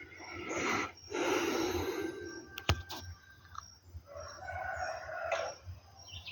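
A rooster crowing, two long calls, with a sharp click between them.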